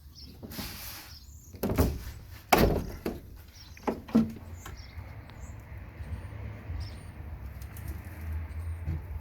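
Wooden hive frames and a hive tool knocking and scraping: a short scrape near the start, then several sharp knocks a couple of seconds in. Faint bird chirps follow in the background.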